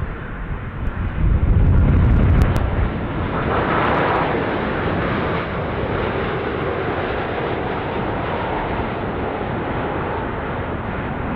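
Jet engine noise of a Boeing 787-10 Dreamliner airliner on landing approach. A deep rumble is loudest in the first three seconds, then it settles into a steadier jet noise as the aircraft passes and flares.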